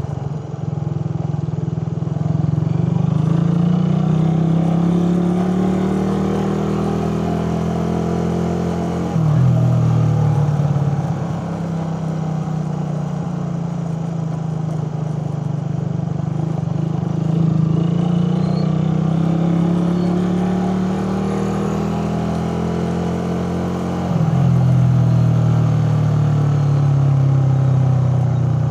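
Suzuki Raider 150 carburetted single-cylinder four-stroke engine under way, its pitch climbing steadily as it pulls, then dropping suddenly twice, about a third of the way in and near the end, as it shifts up and the throttle opens again.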